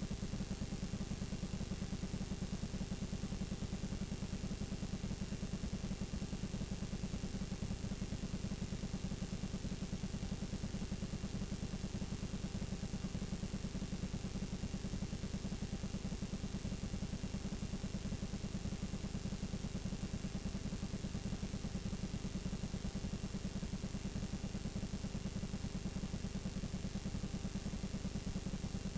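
Steady low buzzing hum with a thin high whine over it: the playback noise of a blank, unrecorded stretch of VHS tape showing static.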